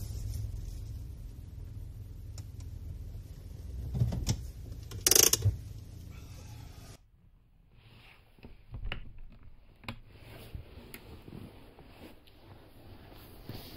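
Nissan NV200 van's engine idling with a low rumble, with a couple of loud clunks about four and five seconds in; the engine stops abruptly about halfway through, leaving faint clicks and knocks of handling inside the van.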